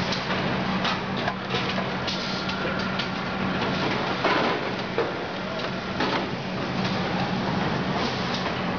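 Automated sack-packing line running: the conveyor and bag-closer sewing head stitching shut a filled woven polypropylene bag, a steady machine hum with irregular clicks and rattles, the loudest clatter about four seconds in.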